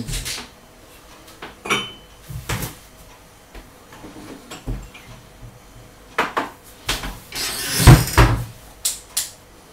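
Scattered knocks and clatters of a kitchen cupboard being opened and shut and a mug being taken out, the loudest a heavy thump about eight seconds in.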